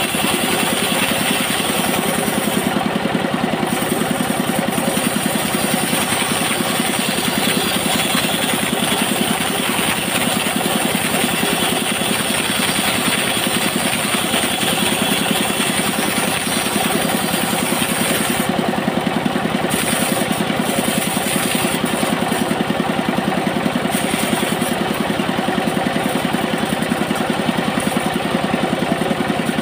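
Engine-driven bandsaw mill running steadily while its blade rips a coconut-wood board lengthwise into planks.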